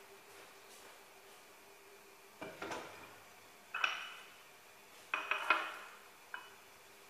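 Metal pots and pans clinking and knocking a few times at irregular intervals, some strikes ringing briefly, the loudest cluster about five seconds in, over a faint steady hum.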